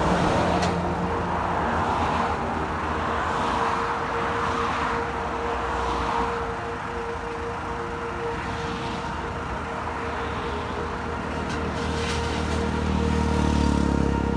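Diesel engine of a trailer-mounted road-coring rig running with a steady hum, over road traffic passing close by. A deeper rumble builds near the end.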